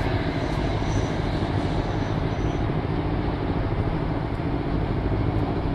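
Steady rumble of road traffic, cars' engines and tyres passing slowly, with no single event standing out.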